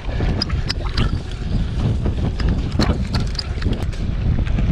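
Mountain bike ridden fast over a dirt forest trail: wind buffeting the camera microphone over the sound of the tyres on the dirt, with many sharp rattles and clicks from the bike over bumps.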